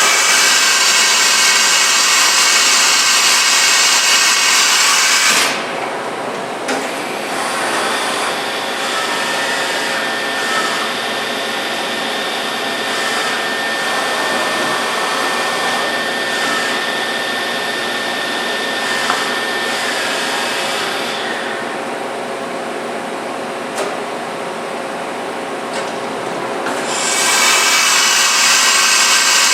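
Fadal VMC 6030 HT CNC vertical machining center running under power, a steady mechanical whir. It is loud and hissing for the first five seconds, then drops to a quieter running sound with a steady high whine, and comes back up loud a couple of seconds before the end.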